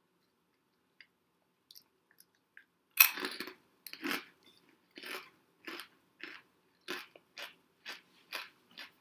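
A kettle-cooked barbecue potato chip bitten with a loud crunch about three seconds in, then chewed with crisp crunches about twice a second that grow lighter.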